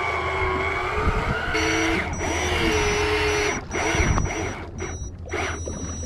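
Banax Kaigen electric deep-drop reel winding line in, its motor giving a steady whine that shifts in pitch and cuts out briefly a few times in the second half, over a low engine hum. A high, intermittent beep joins about two seconds in.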